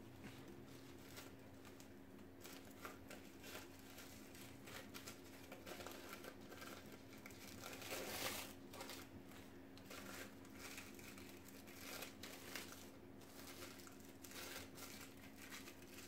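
Faint crinkling and rustling of a dog-coat wrap being folded and handled around a Yorkshire Terrier's hair, loudest about eight seconds in.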